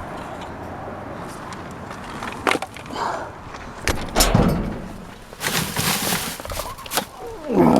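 A run of irregular knocks and clattering that starts a couple of seconds in, with a louder, denser scraping stretch about two-thirds of the way through.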